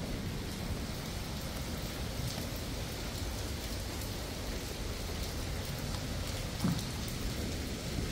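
Steady rain falling, an even hiss with faint scattered drop ticks. A short low knock sounds about six and a half seconds in.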